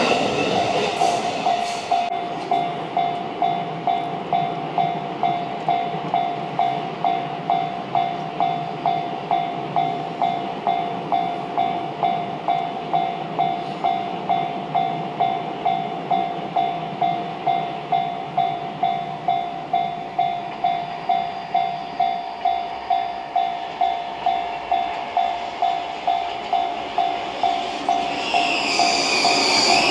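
Railway level-crossing warning bell ringing in an even rhythm of about two strokes a second. A passing train's noise dies away in the first two seconds, and another train's noise, with some high squealing, builds near the end.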